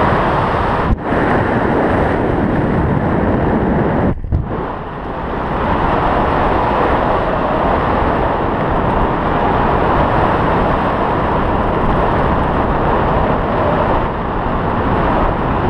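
Loud wind rushing over a hand-held action camera's microphone while descending under an open parachute canopy. The steady rush drops out briefly twice, about a second in and again around four seconds in.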